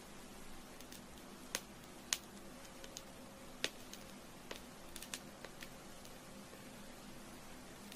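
Burning candle, its wick crackling with irregular small pops over a faint steady hiss.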